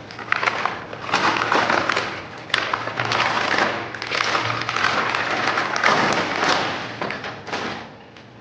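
Plastic packaging crinkling and rustling in uneven bursts, with thumps, as a jumbo stress ball is unwrapped and handled.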